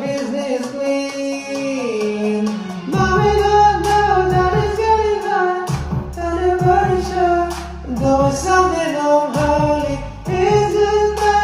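Pop song playing: a sung vocal line over a deep synth bass that drops out briefly a few times and comes back.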